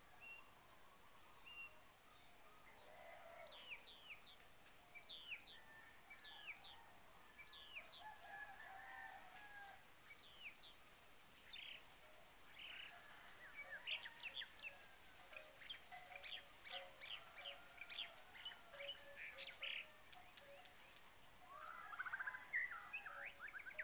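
Several birds faintly calling and singing together: repeated downward-sweeping whistles in the first half, then fast runs of short chirps, with a quick chirping series starting near the end.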